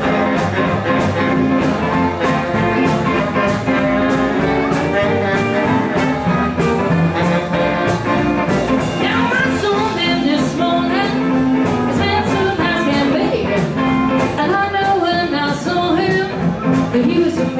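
Live blues band playing with a steady beat: electric guitar, acoustic guitar, saxophone and drum kit, with a woman singing from about halfway through.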